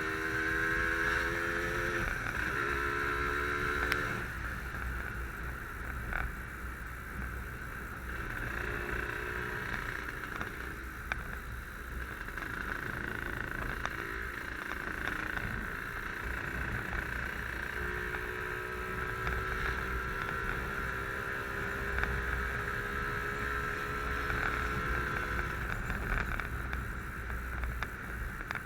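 Yamaha RD135 two-stroke motorcycle engine running steadily under way, mixed with a constant rush of wind and road noise. Its engine note stands out more clearly in the first few seconds and again in the second half.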